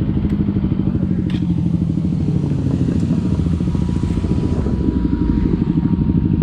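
Kawasaki Z250's parallel-twin engine running at low, steady revs through a SeaPro aftermarket muffler, each exhaust pulse distinct. A single light click sounds about a second in.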